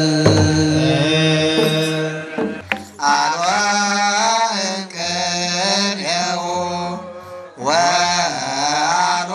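Ethiopian Orthodox clergy chanting in unison to a kebero drum. The first two seconds are held notes. From about three seconds in comes a sliding, ornamented melody, with short breaks near five and seven and a half seconds.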